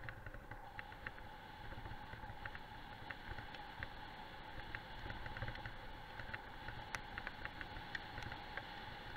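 Wind rumbling on the microphone and the rig rolling fast over a gravel road behind a running dog team, with frequent light, irregular rattling clicks and a faint steady tone.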